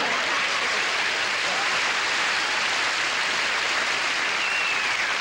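Studio audience laughing and applauding after a comedy punchline, a steady, even wash of clapping.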